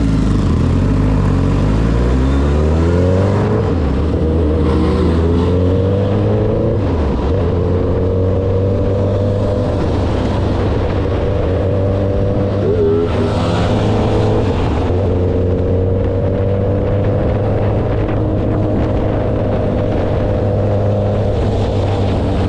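Motorcycle engine pulling up through the gears, its note rising over the first few seconds and again shortly after, then holding steady at speed, with a gust of wind on the microphone about halfway through.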